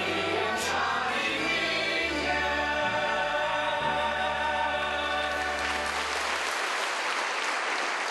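A stage musical's cast singing the closing number together with the band, ending on held chords. Audience applause swells in over the last notes about two-thirds of the way in, carries on after the music stops and fades out near the end.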